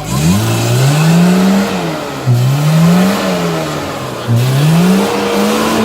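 Suzuki Samurai's 1.3-litre four-cylinder fuel-injected engine revving up hard three times, its pitch climbing and then dropping back each time.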